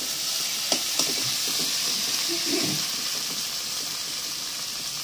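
Onions, tomatoes and dried fish sizzling as they fry in an aluminium wok (kadai), stirred with a metal spatula that clicks against the pan a couple of times in the first second.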